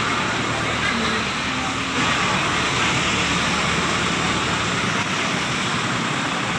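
A motor vehicle engine running steadily, a constant drone with a broad hiss over it.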